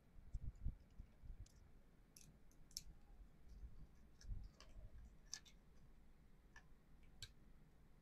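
Faint, scattered clicks and ticks of a small screwdriver working on the screws and plastic shell of a Logitech MX Ergo trackball during reassembly, with a few soft thumps about half a second in and around four seconds in.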